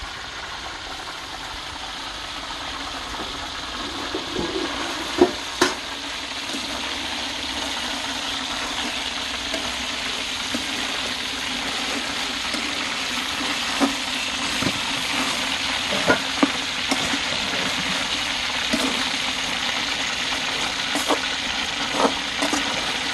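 Chicken pieces with greens sizzling as they stir-fry in a metal frying pan, the hiss growing gradually louder. A metal spatula knocks and scrapes against the pan now and then as the food is turned.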